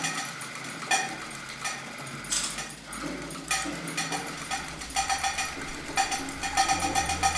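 Experimental sound-art performance: a rapid, even ticking with a sustained ringing tone over it and occasional louder knocks. Low bass tones come in about five seconds in.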